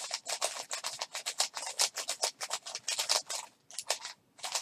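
MeiLong 3x3 speed cube being turned fast by hand: a rapid, uneven run of plastic layer clicks with a short pause near the end. The cube is dry and unlubricated out of the box, its tensions tight enough to need loosening.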